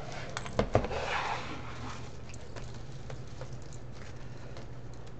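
Two quick knocks on a tabletop cutting mat, then a rustle of plastic deco mesh being handled and unrolled, with a few faint ticks after it.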